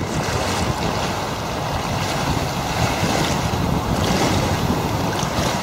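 Strong, gusty wind buffeting the microphone over the rush of waves on a choppy lake, a steady noise with no distinct events.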